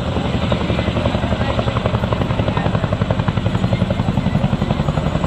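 Boeing CH-47 Chinook tandem-rotor helicopter flying past low, its two rotors beating in a rapid, steady rhythm.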